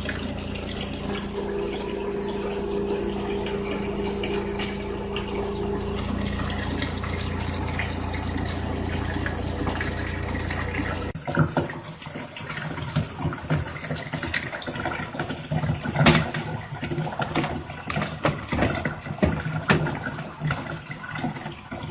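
Giantex twin-tub washer's spin-dryer motor humming steadily while water runs into the wash tub. About eleven seconds in the hum cuts off suddenly as the spin stops, leaving running water and irregular knocks and clatter, the loudest a sharp knock a few seconds later.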